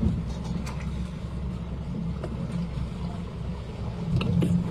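A fishing boat's engine running steadily with a low hum at sea, with a few light clicks and knocks on top.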